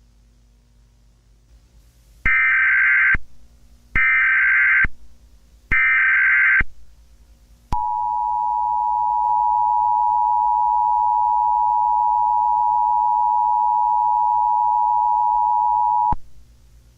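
Mock Emergency Alert System broadcast: three short bursts of SAME header data tones, each just under a second long and spaced about a second apart. They are followed by the EAS attention signal, a steady 853/960 Hz two-tone held for about eight and a half seconds, announcing a required monthly test.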